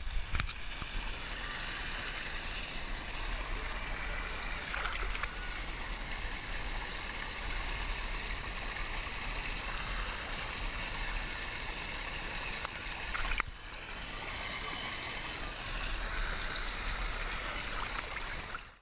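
Pool water lapping and gurgling against a camera held at the water's surface, with a steady low rumble; the sound breaks off briefly about thirteen seconds in.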